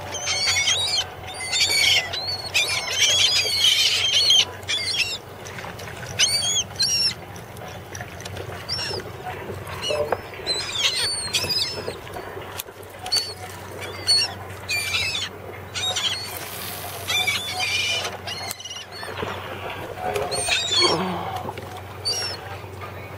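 A flock of gulls calling as they dive on baitfish: many short, high calls overlapping densely for the first few seconds, then coming more scattered.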